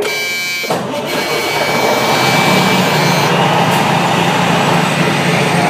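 Fire truck's diesel engine running loudly, heard from inside the cab, over a broad rushing noise; a steady low engine drone builds up about two seconds in.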